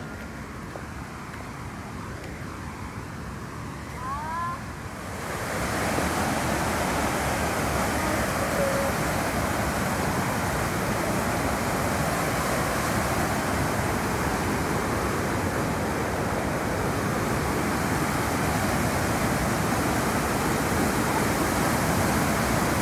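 Steady rushing of a waterfall, Nyangombe Falls, growing louder about five seconds in and then holding steady. A brief rising chirp comes just before.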